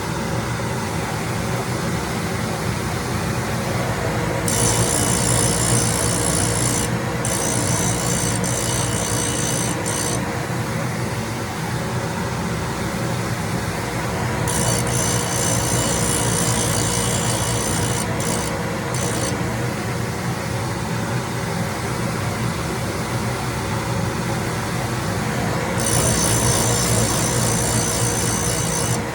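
Grinding machine running with a steady hum, its wheel grinding the faces of stack cutters in passes: three times a high, hissing grind comes in for several seconds and drops away again.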